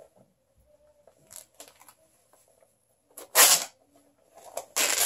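Worn-out pants fabric being torn apart by hand, ripping in short bursts: a few faint rips, then two louder tears, one about three seconds in and one near the end.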